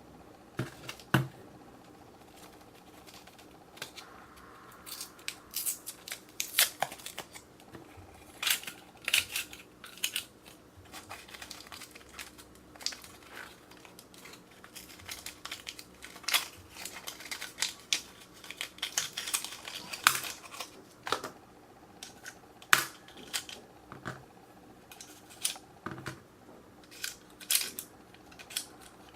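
Irregular small clicks, taps and crinkling rustles of hands handling small objects and packaging at a table.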